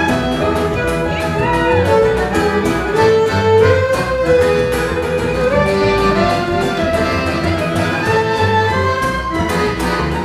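Live Gypsy ensemble music from two violins, double bass, acoustic guitar and accordion, with the violins carrying a fast melody that slides between notes, over a steady strummed and plucked rhythm.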